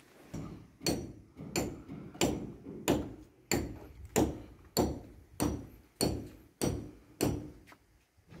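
A hammer striking about eleven even blows, roughly three every two seconds, each knock short with a brief ring; the blows stop shortly before the end.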